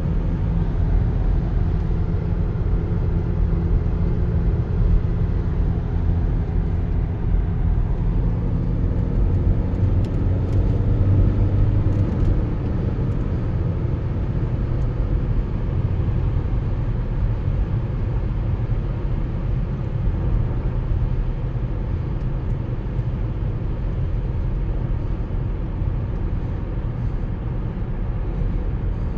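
Volkswagen Passat B7 on the move: a steady low engine and road rumble. Partway through, the engine note climbs slowly for a few seconds, then settles back into the even rumble.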